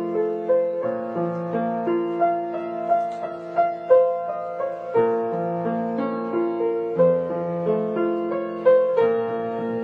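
Solo piano playing a slow classical piece, with single notes and broken chords ringing over held bass notes.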